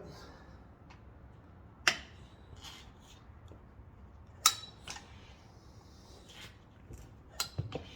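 Rabaconda tire changer's bead breaker being worked on the second side of a motorcycle wheel: a few sharp clicks and knocks, the two loudest about two seconds and four and a half seconds in, with fainter ones between and near the end.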